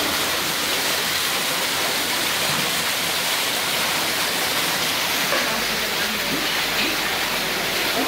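Water from an indoor decorative waterfall falling in a thin sheet off a rock ledge and splashing steadily into a shallow pebble-lined pool.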